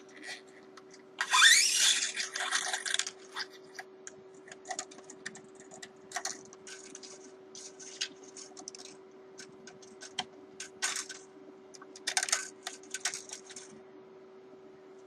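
Handling noise of an electric guitar being restrung. A string is pulled through with a loud scraping sweep rising in pitch about a second in, followed by scattered small clicks and taps and another scrape near the end, over a steady low hum.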